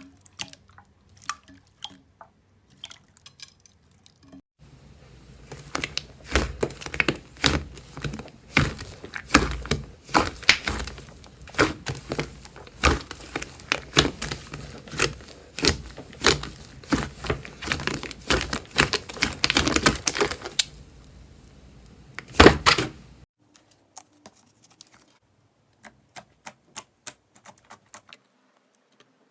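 Slime being squeezed, poked and stretched by hand, making irregular sticky clicks and pops. The clicking is sparse at first, comes thick and fast from about four seconds in, and thins out again near the end.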